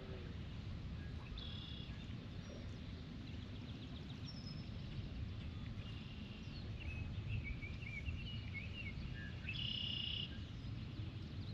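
Small birds chirping and trilling on and off over a low, steady outdoor background noise.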